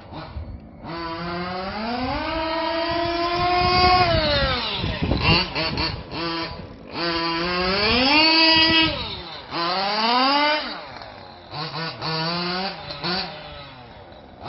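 Losi 5ive-T RC truck's 34cc DMS reed-case two-stroke engine revving up and down in several long throttle bursts, then a run of short blips near the end.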